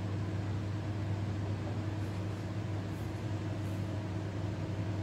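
Steady low hum with an even hiss beneath it, unchanging throughout.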